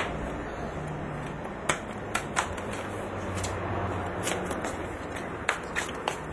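A child's football being bounced and kicked on a concrete patio: a handful of sharp, scattered knocks, with light footsteps.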